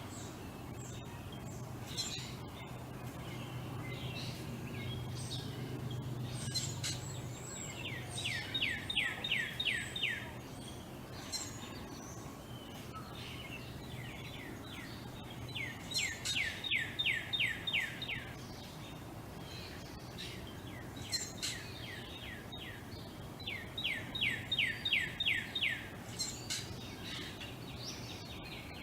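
Backyard birdsong: one bird sings a rapid run of about eight falling whistled notes three times, each run a couple of seconds long and about seven seconds apart, with scattered chirps from other birds between. A steady low hum runs underneath.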